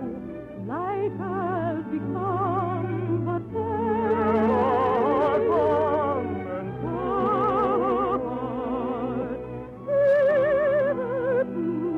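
Operetta music from an old radio recording: an orchestra plays, and its high melody lines carry a strong, wide vibrato. It swells in the middle and comes in louder at about ten seconds.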